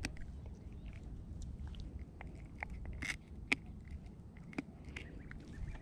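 Faint, irregular clicks and crackles, about one to three a second, over a steady low rumble.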